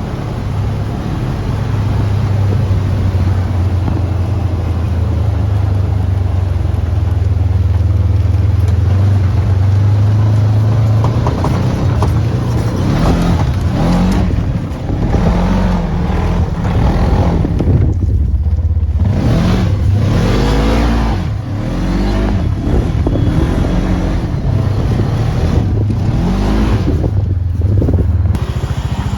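Off-road vehicle engine running steadily under load, then, from about halfway, revving up and down again and again with the pitch rising and falling.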